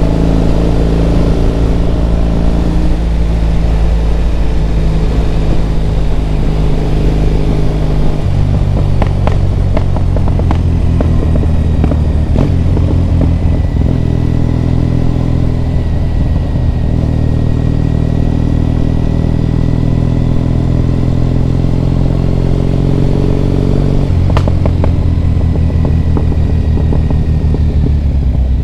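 Triumph Bonneville T100 parallel-twin engine running under way on the road. Its note steps to a different pitch about eight seconds in and again near the end.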